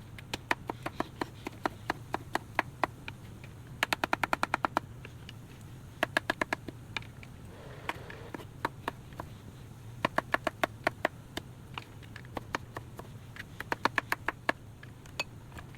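Knife chopping vegetables on a cutting board: runs of quick sharp knocks, about eight a second, with short pauses and single cuts between them.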